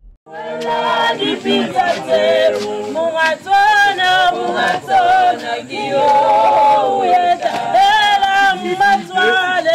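A choir of male voices singing a cappella in harmony, starting just after a short pause.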